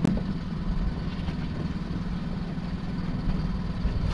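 Small fishing boat's engine idling with a steady low rumble, and one sharp knock right at the start.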